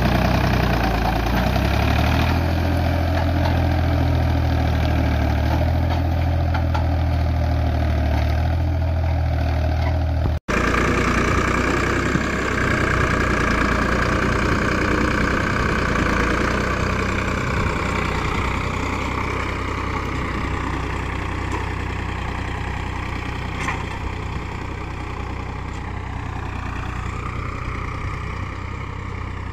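Ford 3000 tractor's three-cylinder engine running steadily under load as it drags a heavy tined cultivator through hard, stony ground. The sound breaks off about ten seconds in and picks up again, and the engine grows fainter in the last third as the tractor pulls away.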